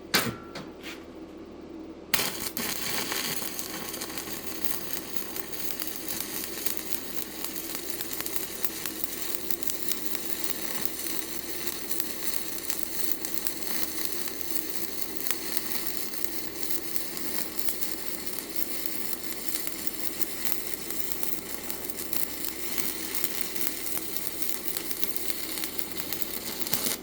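Stick-welding arc from a 7018 electrode: a few short scratches as the rod is struck, then about two seconds in the arc catches and runs as a steady crackling sizzle for a full weld pass, cutting off suddenly at the end.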